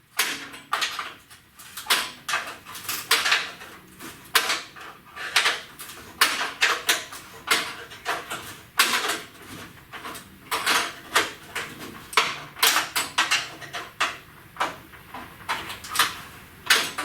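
Metal hand tools clicking, clinking and scraping in irregular bursts while a clip-type fastener on a truck's core support is worked loose.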